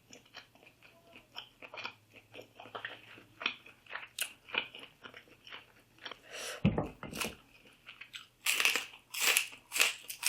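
Close-miked chewing and biting of crunchy food in a mukbang, a run of short crackly crunches that grow louder and denser near the end. A single low thud comes about two-thirds of the way through.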